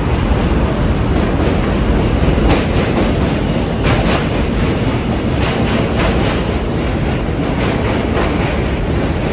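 New York City subway train running past close by on the steel bridge tracks: a loud, steady rumble of wheels on rail, with irregular clacks as the wheels cross rail joints.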